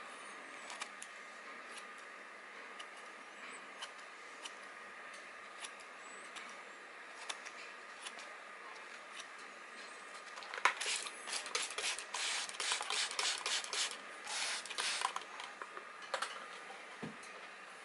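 Freshly sharpened pet grooming shears snipping through paper towel: a few scattered snips at first, then a quick run of snips for about five seconds past the middle. A steady faint hum lies underneath, and a single low thump comes near the end.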